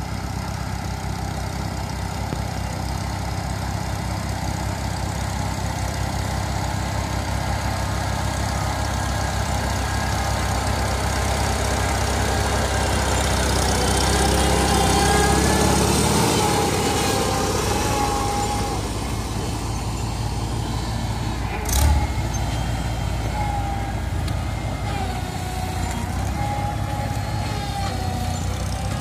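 Farmall Super A tractor's four-cylinder engine running steadily under working load as it pulls a cultivator through the rows, growing louder as it passes close by about halfway through and then falling back. A single sharp knock stands out about three-quarters of the way through.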